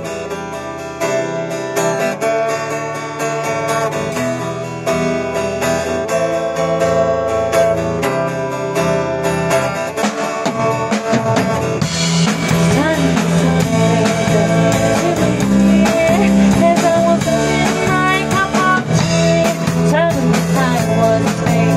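A live band playing a song: acoustic guitars strumming chords, then about twelve seconds in the drums, an electric guitar and a woman's singing voice come in and the music gets fuller and louder.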